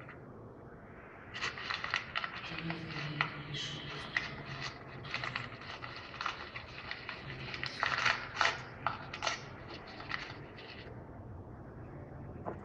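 Parrot making rapid, irregular clicking and scraping sounds, starting about a second and a half in and dying down near the end.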